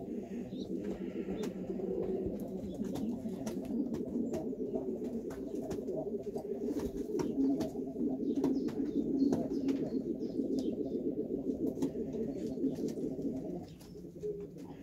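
Pigeons cooing in a steady, unbroken low rolling sound, with many small clicks over it; the cooing drops away about a second before the end.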